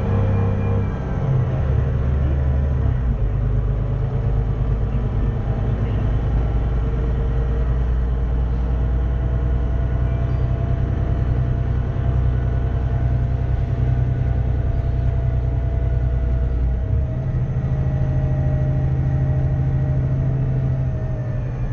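Cummins ISBe 6.7-litre six-cylinder diesel engine of a VDL DB300 double-decker bus running with a steady low rumble. A fainter whine drifts slowly up and down in pitch and rises near the end.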